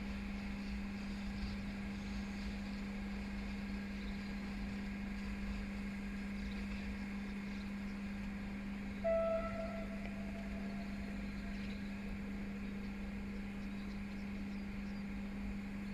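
Steady low hum and rumble from a departing freight train hauled by electric locomotive 441-510, heading away into the distance. A short tone sounds about nine seconds in and fades.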